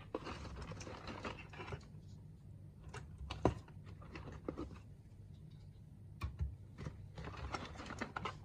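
Irregular clicks, taps and rustling from small objects being handled, over a steady low hum.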